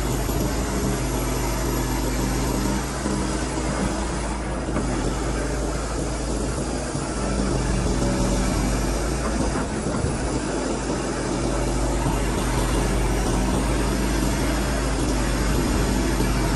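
Kobelko SK200 excavator's diesel engine running steadily under digging load as the bucket works into wet earth, heard from the operator's cab; it gets a little louder about halfway through.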